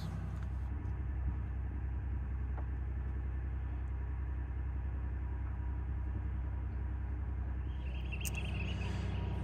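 Engine running steadily with a low, even drone.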